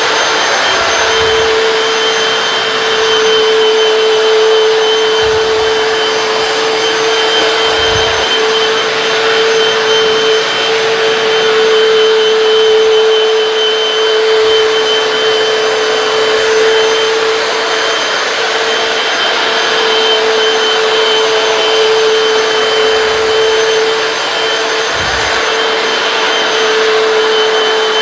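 Hoover PowerDash hard floor cleaner running while wet-cleaning a tile floor: a steady motor whine over a loud, even suction hiss. A few soft low bumps come through as it is worked over the floor.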